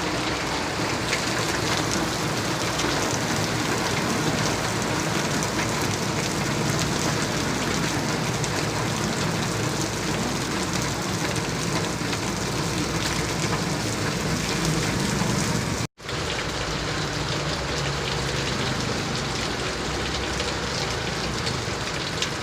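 Heavy rain falling steadily, an even hiss with no let-up; the sound cuts out for an instant about two-thirds of the way through.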